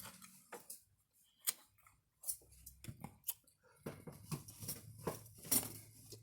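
Close-up eating sounds: irregular crisp crunches and wet mouth clicks from chewing, coming thicker after about four seconds.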